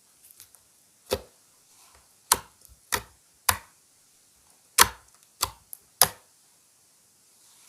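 Clear slime being worked by hand, giving about eight sharp, irregular pops and clicks as trapped air bursts.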